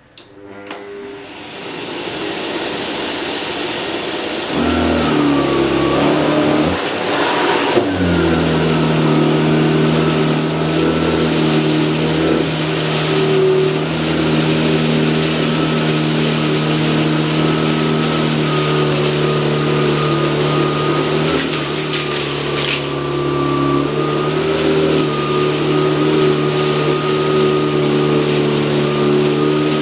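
Electrolux UltraFlex bagless canister vacuum switched on and running up to speed, with a Miele electric powerhead attached, then running steadily with a high motor whine as it picks up a heavy mess of dust and rice. It gets louder about four seconds in.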